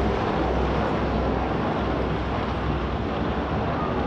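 Formation of military helicopters flying overhead: a steady rotor and engine drone with a deep low rumble.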